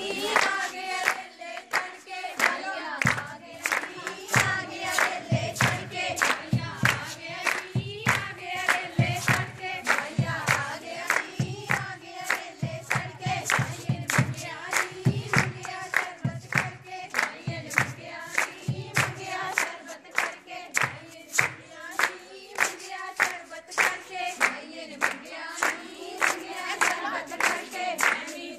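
A group of women singing a Punjabi gidha folk song together while clapping in a steady rhythm, about two claps a second.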